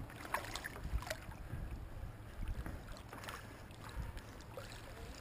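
Shallow seawater sloshing and splashing around a shrimp push net as it is swept through the weed and lifted to the surface, with scattered small splashes and drips over a low rumble.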